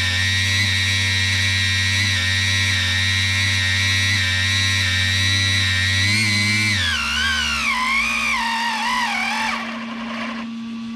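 Electric motor driving a 3D-printed RC outboard's brass bevel gears and propeller shaft, running with a steady high whine while the freshly greased gears run in. About six and a half seconds in the throttle comes off: the whine wavers and falls in pitch as it spins down, then stops.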